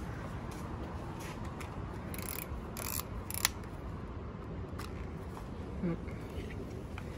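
Kodak film camera being worked by hand: a few ratcheting clicks from about two to three seconds in, then one sharp, louder click, typical of winding the film-advance wheel and firing the shutter.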